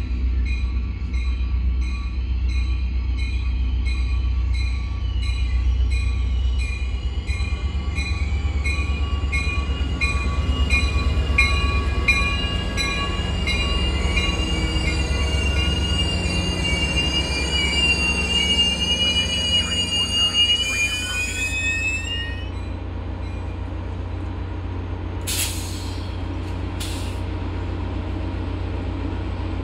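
Caltrain diesel locomotive and passenger cars pulling into a station and stopping. The low rumble of the diesel engine runs under a bell ringing about twice a second, and the wheels and brakes squeal with a wavering high tone that cuts off about 22 seconds in as the train halts. Near the end come two short hisses of air.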